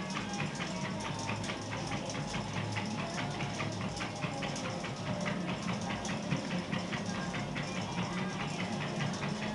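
Treadmill running with a steady motor hum, under the quick, even ticking of an American Staffordshire terrier's paws and claws on the moving belt as it trots.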